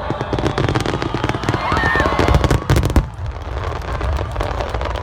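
Fireworks going off: a dense barrage of rapid crackling bursts over low booming rumble, which cuts back sharply about three seconds in to a lighter scattered crackle.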